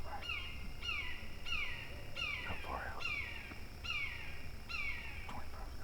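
A bird calling a steady series of slurred, downward-sweeping notes, about one and a half a second.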